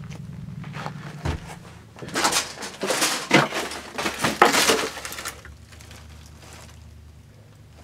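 Crunching and crackling footsteps over debris on a floor, loudest from about two to five seconds in, then fading to a low steady background.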